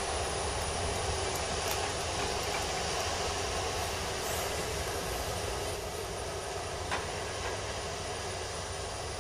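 Jet engines of an Airbus A330-200 running as the airliner moves on the runway at the start of its departure, heard at a distance as a steady rushing noise. A small knock about seven seconds in.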